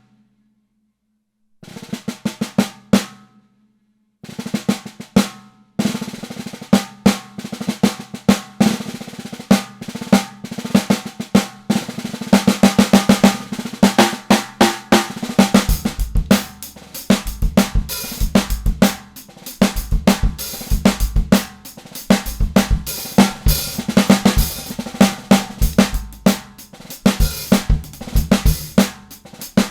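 Fatarelli solid-block imbuia 14x3.5" piccolo snare drum played: a few single ringing hits, then fast strokes and rolls, with a bass drum joining in from about halfway through.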